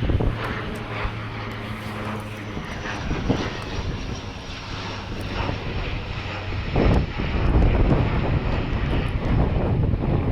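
Wind buffeting the microphone over the steady low drone of a distant engine. The gusts grow stronger in the second half.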